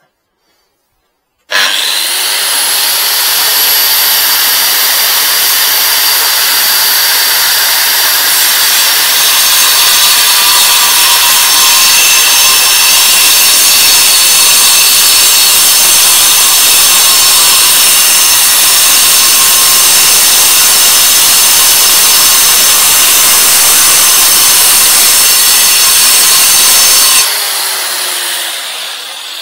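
Hikoki angle grinder starting abruptly and cutting into a concrete paving slab: a loud, steady, gritty whine. Near the end it is switched off and its whine falls away as the disc spins down.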